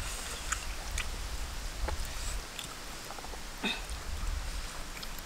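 Faint eating sounds of people eating rice and chicken by hand: scattered small clicks and smacks from chewing and lips, with a slightly stronger smack a little past halfway, over a low rumble.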